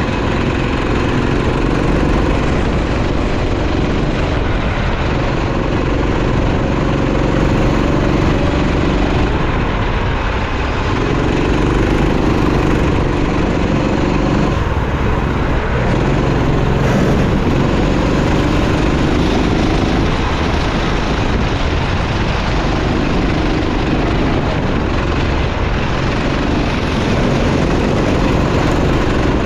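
Racing kart engine running hard, its pitch rising as it accelerates and dropping off every few seconds as it slows, over steady road and wind noise.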